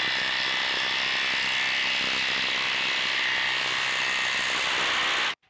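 RIDGID cordless impact driver on speed 3 hammering steadily as it drives a long lag screw into a very tough log, a rapid rattle with a faint whine over it. It stops suddenly near the end.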